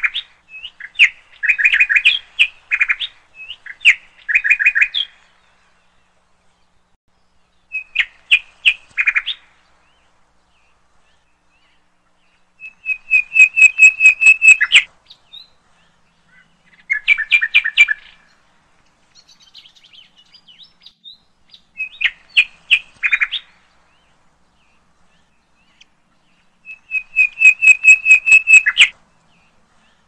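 Baby birds' begging calls: bursts of rapid, high chirps a second or two long, repeated with pauses of a few seconds between.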